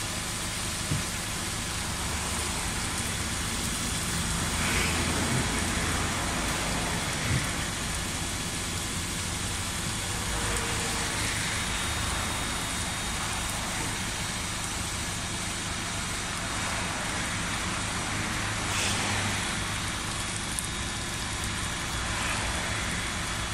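Steady engine hum under the hiss of a high-pressure water jet spraying glass. The hiss swells several times.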